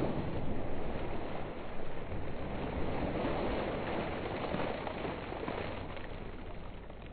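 Intro logo sound effect: a rushing noise, like splashing water and wind, that slowly fades.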